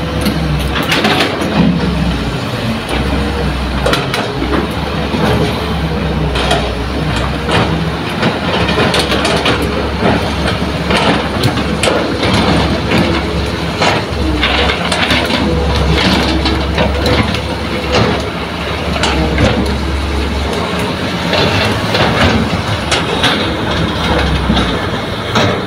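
Heavy diesel machinery running steadily: a Hitachi excavator and dump truck engines at work, with frequent clanks and knocks.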